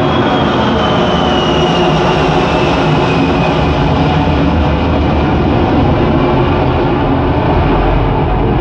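Boeing 747 takeoff soundtrack from a Dolby Atmos demo, played loud through home-theater speakers: a steady jet-engine roar with deep rumble and a high engine whine that slowly falls in pitch over the first few seconds.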